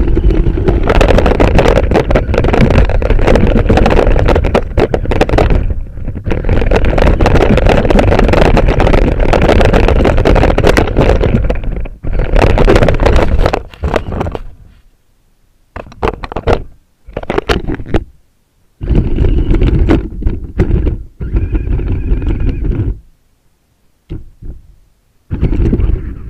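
Radio-controlled truck driving, its running noise loud and dense, stopping and starting several times with short gaps after about fourteen seconds.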